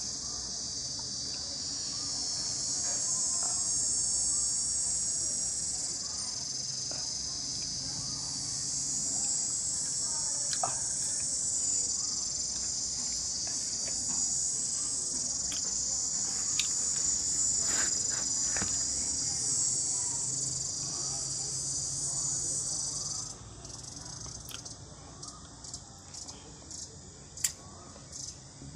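Continuous high-pitched insect trilling, like a cricket chorus, that stops abruptly about three-quarters of the way through. After that only scattered short chirps and clicks remain.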